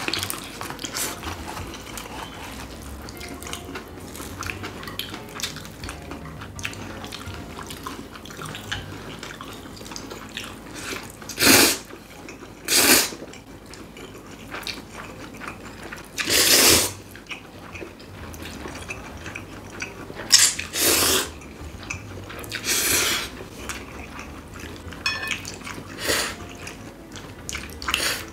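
Two people slurping cold spicy bibim noodles close to the microphone: about six loud slurps, each under a second, beginning about a third of the way in. Wet chewing and lip smacking fill the gaps between them.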